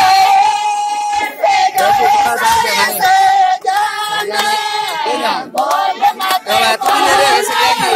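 Female voices singing a folk song, the melody drawn out on long held notes.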